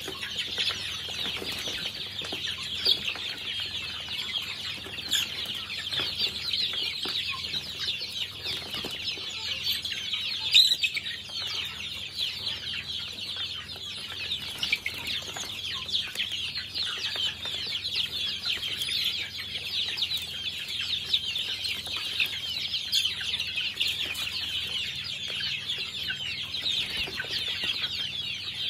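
Flock of young chickens peeping nonstop, many high chirps overlapping into a dense chatter. A sharp knock stands out about ten seconds in.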